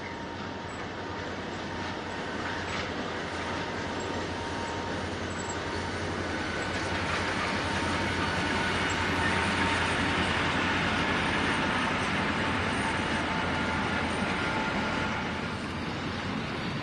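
An empty grain train's hopper wagons roll across a viaduct: steel wheels running on the rails in a steady rumble. The sound grows louder toward the middle as the wagons pass closest, then falls away near the end.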